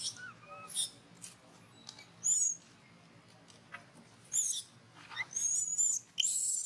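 Baby long-tailed macaque giving short, shrill distress squeals while pinned down by an adult. The squeals come in a run of five or six and grow longer and closer together toward the end.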